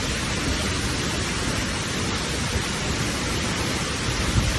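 Steady rush of falling water, a waterfall or fast stream, an even hiss with no let-up.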